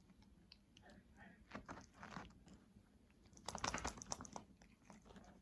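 Congo African grey parrot playing with its toy bell: faint scattered clicks and short rattles, with the busiest and loudest rattle about three and a half seconds in.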